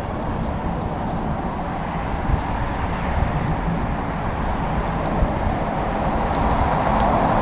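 Riding a recumbent bike along an asphalt road: a steady rumble of wind on the microphone and tyre noise, growing louder toward the end.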